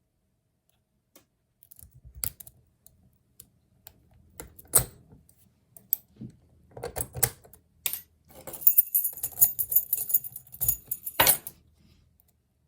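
Lock picks working a Master Lock Magnum padlock: scattered sharp metallic clicks and taps, then about three seconds of fast, high metallic rattling that ends in a sharp knock.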